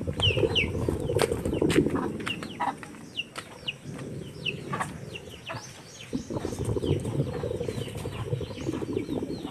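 Birds chirping in short, falling calls, often several a second, over a steady low, rough noise with scattered sharp crackles.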